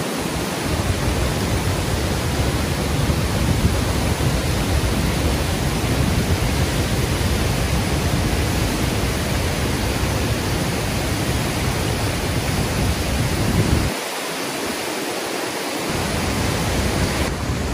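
Canim Falls pouring over its rock lip and crashing into the plunge pool below: a loud, steady rush of water. The deep rumble drops out briefly about fourteen seconds in.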